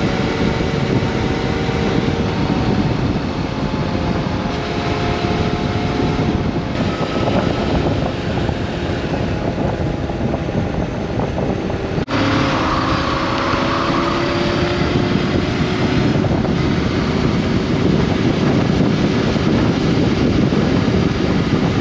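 Honda CB400X motorcycle running at a steady cruise under a constant rush of wind and road noise, its engine tone drifting only slightly in pitch.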